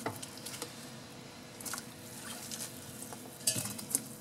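Broccoli florets being tipped from a glass bowl into a steel pot of hot salted water for blanching: soft splashes and light knocks, the loudest near the end.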